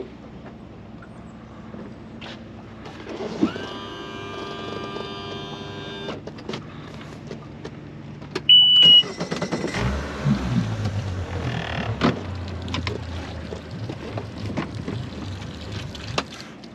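A small electric motor whines steadily for about two and a half seconds. A short, loud, high beep follows. Then a boat's outboard engine starts about ten seconds in and runs with a low rumble and some knocks for about six seconds before stopping.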